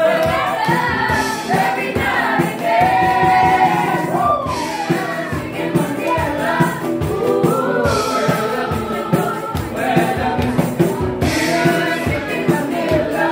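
Cooks and waiters singing together as a group, several voices in harmony over a rhythmic beat.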